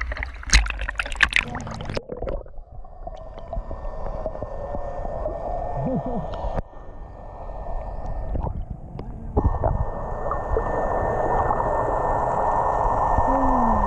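Splashing as a handheld action camera is plunged into shallow sea water, then muffled underwater water noise picked up through the camera's waterproof housing. A steady thin tone joins in about two-thirds of the way through.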